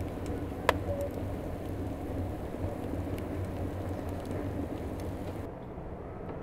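Split logs burning in a wood-fired brick oven: a steady rushing fire noise with scattered crackles and one sharp pop about a second in. The hiss drops away near the end, leaving a low rumble.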